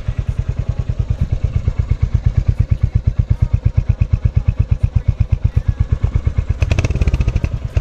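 Royal Enfield Hunter 350's single-cylinder engine idling through its exhaust with an even, rhythmic thump, then revved up near the end.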